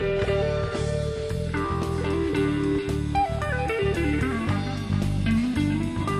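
Country-rock band music with electric guitar and drums; a guitar line steps down in pitch about halfway through.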